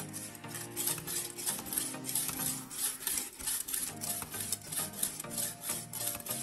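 Whetstone rubbed back and forth along a steel kitchen knife blade: a repeated gritty scraping at about three strokes a second. Soft background music runs underneath.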